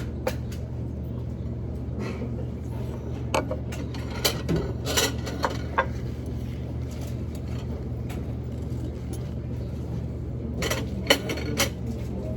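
Cutlery and dishes clinking now and then while eating, in two clusters of sharp clicks, over a steady low hum.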